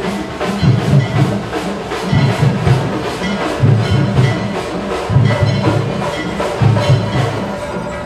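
Percussion music with a steady beat: sharp strokes about four a second over a deeper drum pattern that comes round about every second and a half.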